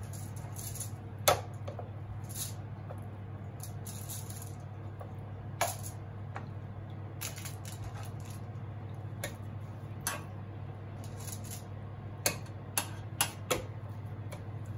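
Metal kitchen tongs clicking against an air-fryer basket as raw chicken wings are laid into it: scattered sharp clacks, with a quick run of four near the end, over a steady low hum.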